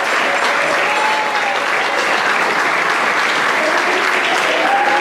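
A crowd of guests applauding, steady massed clapping with no let-up.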